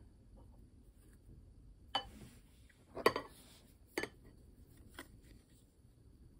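Tableware and a tin can being handled on a table: a few short, sharp clinks and knocks about a second apart, the loudest a quick cluster about three seconds in.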